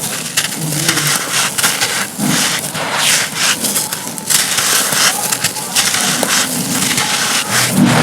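Dry, dusty cones of crumbly material being crushed and crumbled by hand, a dense run of crisp crunches and crackles.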